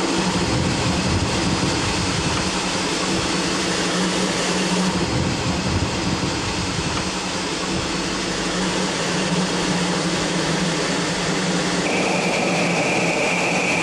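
Steam locomotive running, a steady hiss and rumble of steam and machinery, with a steady high tone coming in abruptly near the end.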